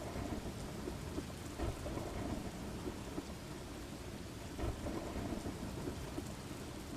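Steady rain falling with a low rumble of thunder underneath and scattered louder drops.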